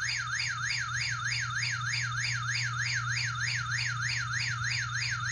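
KERUI wireless motion-sensor alarm chime sounding its alarm mode, set off by its motion sensor: an electronic siren tone warbling rapidly up and down, about three sweeps a second, over a steady low hum.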